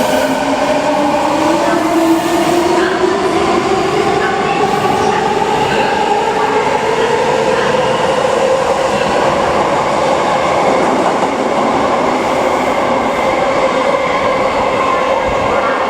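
Odakyu 4000-series electric train pulling out of the station, its traction motors whining in two tones that rise steadily in pitch as it accelerates.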